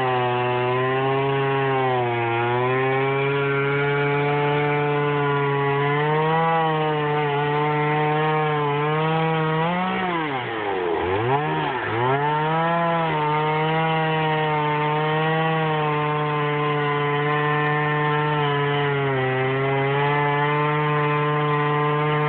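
Chainsaw running at high speed while cutting into a large dead tree, its pitch holding steady. About halfway through, the engine speed drops sharply twice as the saw comes off the throttle or bogs in the cut, then picks back up.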